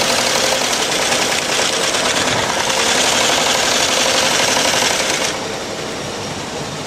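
Welt-sewing machine running, chain-stitching a welt strip through the rib of a shoe with a fast even rattle. It stops suddenly about five seconds in, leaving a lower steady machinery hum.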